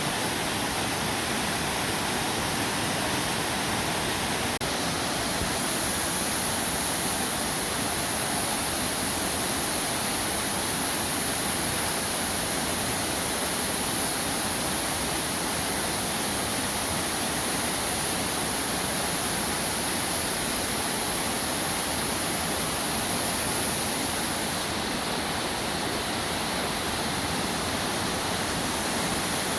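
Waterfall rushing steadily, an even, unbroken wash of falling water. A high steady hiss rides on top of it from about five seconds in until near the end.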